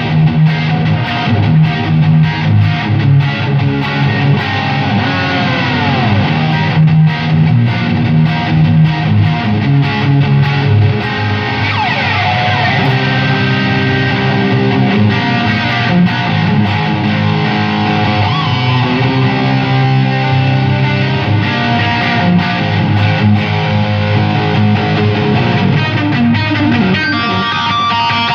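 Electric guitar played through a Valeton Dapper Dark mini high-gain distortion pedal: heavily distorted riffs and held chords, with the pitch sliding down a couple of times.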